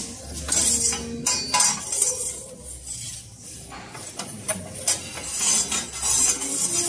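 Long-handled metal pizza peel scraping and clinking on the stone floor of a wood-fired brick oven, in several strokes with a few sharp clicks, as the pizza is turned.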